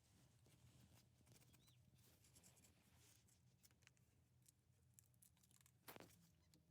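Near silence: faint scattered clicks over a low hum, with one short knock about six seconds in.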